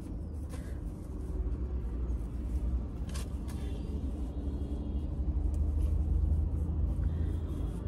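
Low, steady rumble of a car idling, heard from inside the cabin and growing a little louder toward the end, with faint rustles and a brief crackle of a gauze bandage being handled about three seconds in.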